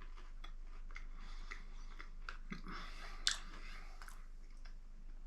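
A person chewing crunchy Flamin' Hot Cheetos pretzels: a run of soft, irregular crunches, with one louder crunch a little past three seconds in.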